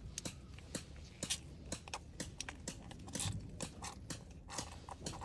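Hot oil crackling and popping in a cast-iron skillet as small pieces of food are dropped in: irregular sharp spits.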